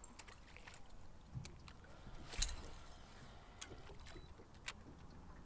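Fishing reels and tackle during casting and retrieving: a few faint, scattered clicks and ticks, the clearest about two and a half seconds in, over low wind and water noise.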